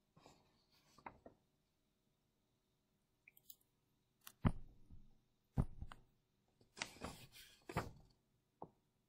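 Pen or stylus on a writing tablet: a few sharp taps and short scratchy strokes, the loudest in the second half.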